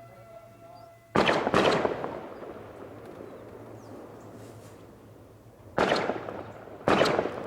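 Four loud, sharp bangs in two pairs: the first pair about a second in, the second pair near the end, each bang dying away briefly.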